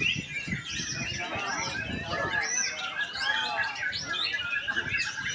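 Caged white-rumped shamas (murai batu) singing at a bird-song contest, several birds at once in a dense, overlapping tangle of whistles, trills and chirps.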